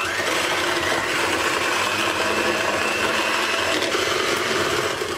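Electric hand mixer running steadily at medium speed, its beaters creaming butter, sugar and oil in a glass bowl.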